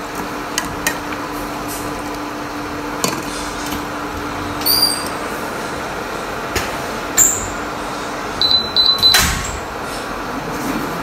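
Induction cooktop running with a steady fan hum while pork cooks in a covered pan; a few clinks of spoon and glass lid, and a quick run of high beeps about eight and a half seconds in, followed by a sharp click.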